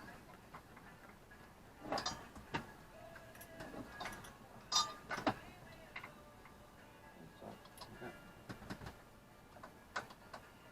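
Scattered metallic clinks and knocks of hand tools, spanners on the engine's bolts and brackets, some with a brief ring. The strongest clusters come about two seconds in, around five seconds in, and near the end.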